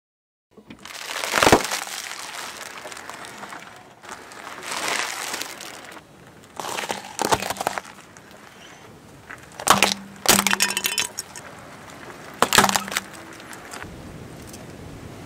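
Car tyre rolling slowly over things and crushing them: crackling and crunching with several sharp cracks of breaking plastic.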